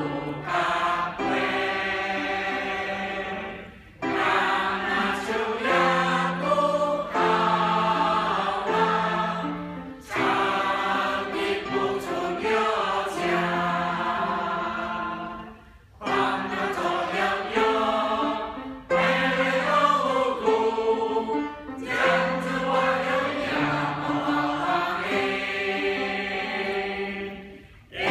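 Mixed church choir of men and women singing a hymn in Teochew, in phrases of about six seconds with a short break for breath between them.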